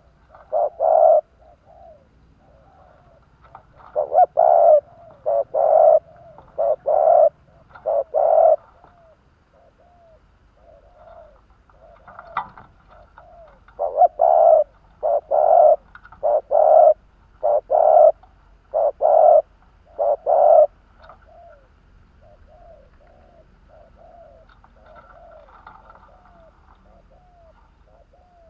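Spotted dove cooing in repeated loud phrases, with softer short coo notes in between and a quieter stretch near the end. This is the decoy bird's call, used to provoke wild doves.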